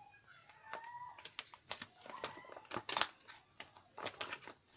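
Clear plastic envelope crinkling and crackling in short sharp bursts as a handful of pens is pushed into it, with the pens knocking against the plastic; the loudest crackle comes about three seconds in.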